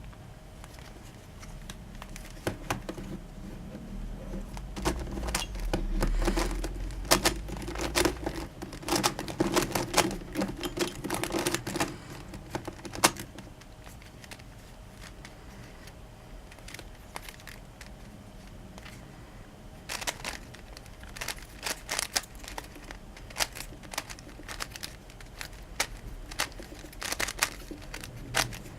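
Plastic twisty puzzle, a DaYan Megaminx, being turned by hand: rapid clicking and clacking in two long flurries, the first about five seconds in and the second about twenty seconds in.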